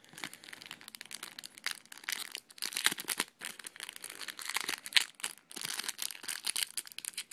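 Crinkly wrapper of a trading-card pack being torn open and handled, an irregular stream of sharp crackles.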